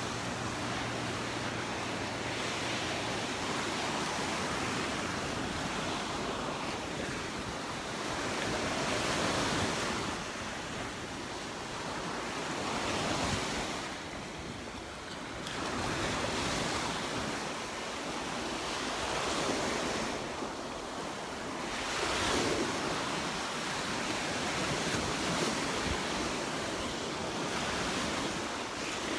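Surf breaking and washing up the beach, swelling and fading every few seconds, with wind buffeting the microphone.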